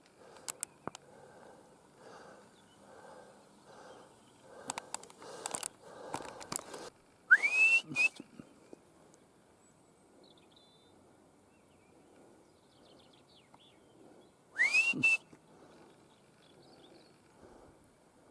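Alpine marmot alarm whistles: two sharp calls about seven seconds apart, each sweeping steeply up in pitch and held briefly at the top. This is the marmot's warning call, given when it has spotted a human.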